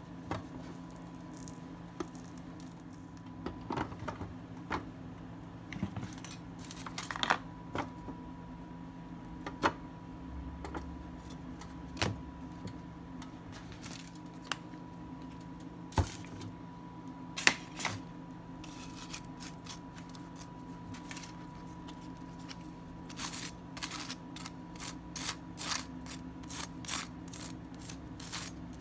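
Kitchen handling sounds as a sandwich is assembled: scattered sharp clicks and light taps of utensils and packaging on the counter, coming in a quicker run near the end, over a steady low hum.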